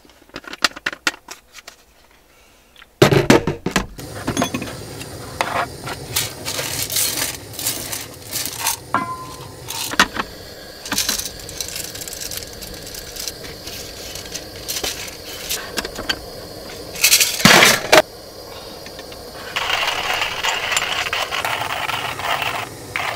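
Coffee beans rattling and clinking in a glass jar and metal containers, with taps and clatter of handling. About twenty seconds in, a steady grinding starts: a hand coffee grinder milling the beans.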